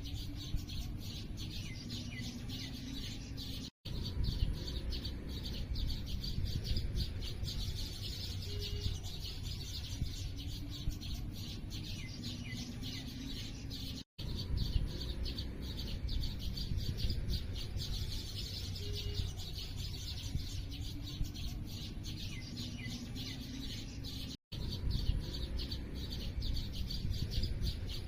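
Small birds chirping and tweeting in a dense, continuous chorus, with a few lower calls under it and a steady low rumble. The sound cuts out for an instant three times, about ten seconds apart, where the recording loops.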